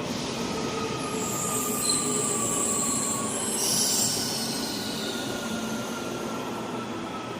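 A train running on the rails with its wheels squealing: high, thin squeals come and go over the steady rumble of the running train, loudest between about one and four seconds in, with a fainter whine that slowly falls in pitch.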